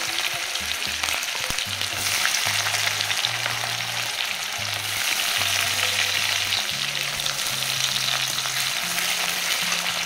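Sliced onions and whole garlic cloves sizzling steadily in hot mustard oil in a karahi, with dried red chillies and cumin seeds frying alongside. A spatula stirs the pan now and then.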